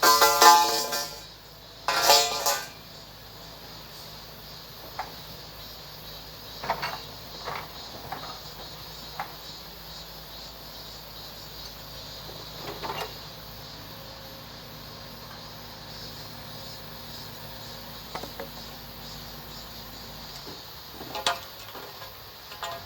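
A vehicle horn honks twice, a long honk then a short one, followed by scattered knocks and clanks over a steady low machine hum.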